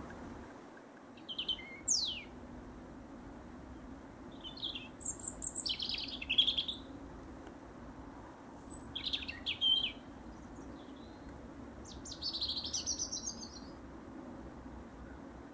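European robin singing: four short, high, warbling phrases, each followed by a pause of a couple of seconds, over a faint steady low hum.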